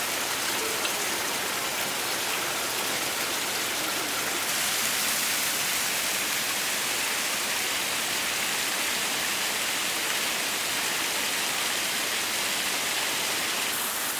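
Running water splashing steadily over rocks, from a small waterfall pouring down a stone wall into a shallow pool. The splashing turns brighter and hissier about four seconds in.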